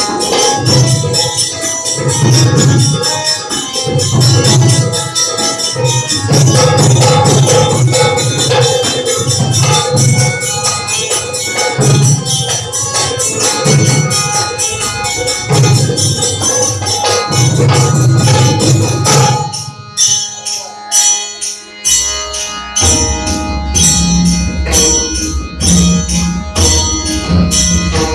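Indian folk percussion ensemble playing: large dhol barrel drums, tabla and other hand drums over harmonium, with fast metallic ticking high above the drums. About twenty seconds in the deep drums drop out for a few seconds, leaving the lighter percussion, then come back in.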